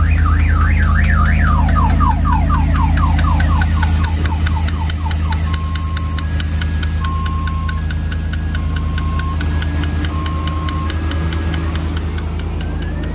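An electronic car alarm siren cycling through its tones: a fast up-and-down warble, then a run of falling sweeps, then alternating high and low beeps, with a fast ticking through the latter part. Underneath, a pickup's engine idles steadily, running its newly fitted dual-alternator belt drive.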